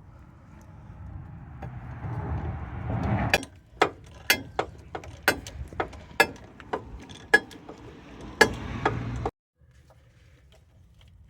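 Socket ratchet on a 17 mm bolt of a rear wheel bearing hub: a scraping, grinding rise for about three seconds, then a run of sharp metallic clicks roughly two a second, cutting off suddenly.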